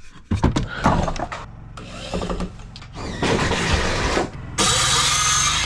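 A power tool running in short bursts, a steady whirring motor sound, loudest in a run near the end. It comes after a few knocks and rattles at the start.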